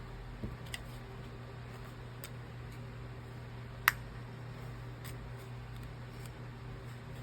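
A few light clicks and taps of small tools on the phone, with one sharper click about four seconds in, over a steady low hum.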